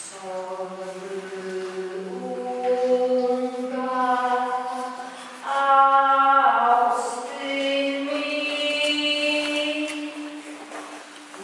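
A person singing slow, wordless held notes that step upward in pitch, each note ringing on into the next inside a chapel carved out of glacier ice.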